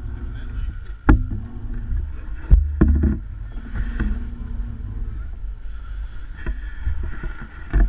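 Twin Suzuki outboard motors running as the boat moves over choppy sea, a steady low rumble with water and wind noise, broken by several sharp thumps as the hull hits waves.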